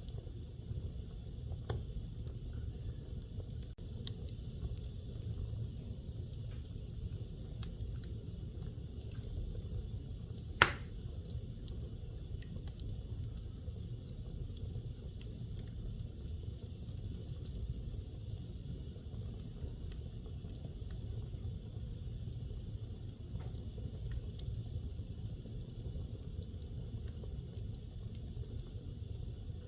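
Wood fire burning in a fireplace: a steady low rumble with scattered small crackles, and one loud pop about ten seconds in.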